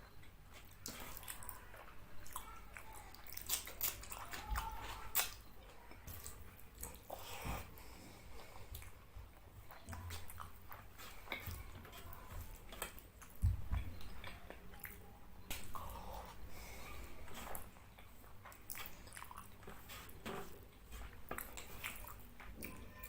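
A person chewing and eating fish curry with rice, with irregular sharp, wet mouth clicks and smacks.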